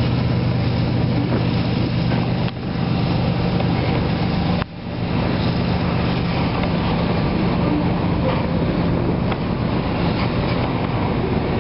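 Diesel engines of an NRE 3GS21B three-engine genset locomotive running with a steady low drone as the freight train rolls past.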